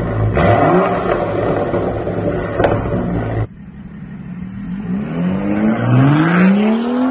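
BMW 335i's turbocharged inline-six through an AWE Tuning mid-pipe-back exhaust, revving, with one sharp crack a little before the middle. After an abrupt cut, the exhaust note rises steadily in pitch as the car accelerates away.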